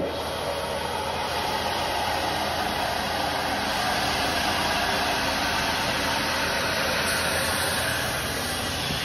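Compressed air hissing steadily through a coiled hose from a backpack air cylinder as it inflates the rescue boat's middle floor chamber, which is filled to about 10 psi.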